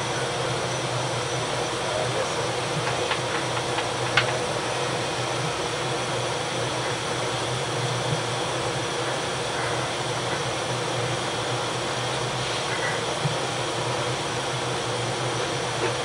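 Steady machinery noise of a Knox-class frigate's steam propulsion plant heard in engineering main control: a constant hum under an even rushing hiss. A sharp click about four seconds in.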